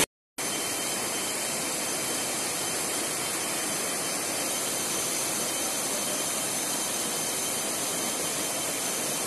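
Fast-flowing river water rushing steadily, starting about half a second in after a brief silence.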